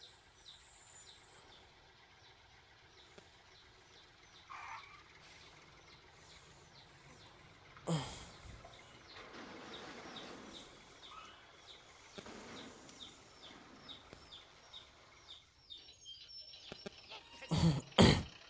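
Small birds chirping steadily in a high, evenly repeated pattern, about three chirps a second. A sudden loud sound cuts in about eight seconds in, and two loud bursts come near the end.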